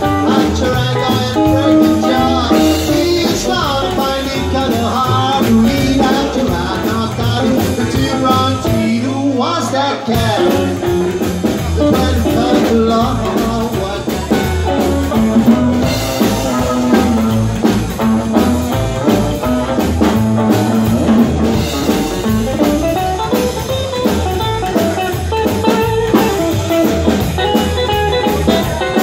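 Rockabilly band playing live: hollow-body electric guitar, upright double bass and drum kit, with a driving beat. About nine seconds in the bass and drums drop out for a moment before the band comes back in.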